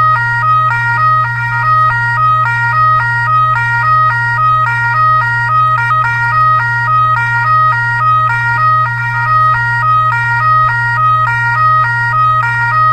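An electronic siren sound effect: a short pattern of beeping notes that jump between a few fixed pitches instead of gliding, repeated over and over. A steady low hum runs underneath.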